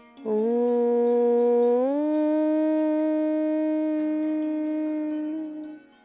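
A single long chanted "Om", held for about five and a half seconds, its pitch stepping up once about two seconds in, with soft plucked-string music underneath.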